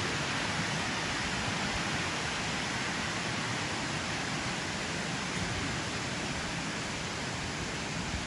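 Steady, even rushing of water, unchanging in level, with no distinct events standing out.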